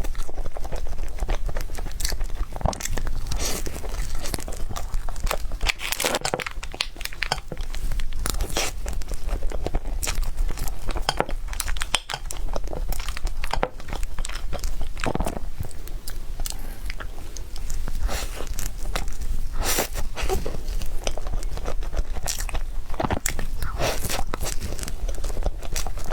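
Close-miked eating of a matcha mille crepe cake: biting and chewing, with many short, irregular mouth clicks and smacks.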